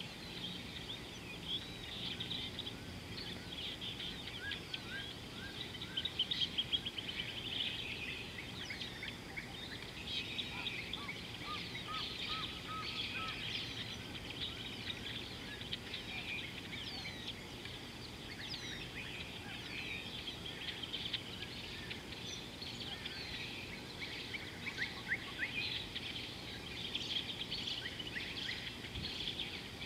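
Several birds calling at once: a dense chorus of short, high chirps and quick trills, over a faint steady low background noise.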